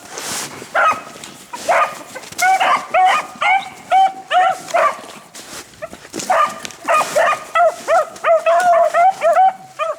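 A pack of beagles baying on a rabbit's trail, several hounds giving short, repeated, overlapping chop mouths at different pitches as they run the track.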